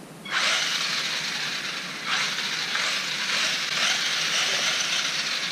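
Electric RC truck's motor and drivetrain whirring as the throttle is applied with the wheels spinning in the air. It starts a moment in, eases off briefly around two seconds, then runs up again.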